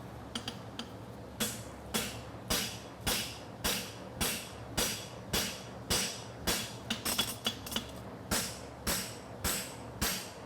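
Blacksmith's hammer striking steel at the anvil in a steady rhythm of about two ringing blows a second, beginning about a second in, while the farrier forges a hind draft bar shoe. A quick flurry of lighter taps comes midway. A steady fan hum runs underneath.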